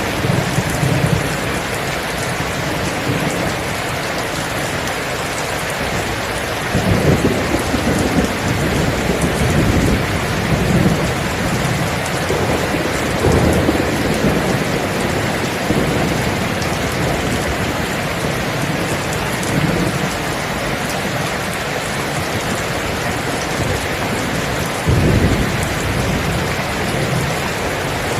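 Steady rain falling in a thunderstorm, with thunder rumbling low several times through it; the sharpest roll of thunder comes near the end.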